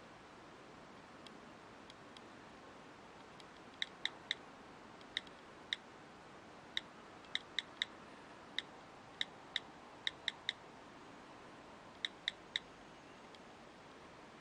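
iPhone on-screen keyboard key clicks as text is typed into a login form: about eighteen short, sharp clicks in irregular runs, starting about four seconds in and stopping about three-quarters of the way through, over faint room hiss.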